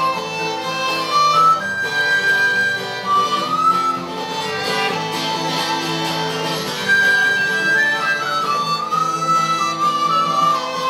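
Instrumental break of an Irish folk song played live: a fiddle plays the melody, with held notes and slides, over guitar chords.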